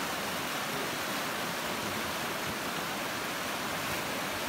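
Steady rush of a fast river running over rapids.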